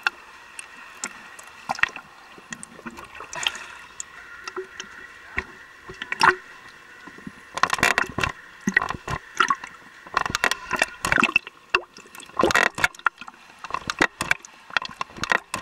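Swimming-pool water splashing and lapping close by, in irregular sharp splashes that come thicker and louder from about halfway through.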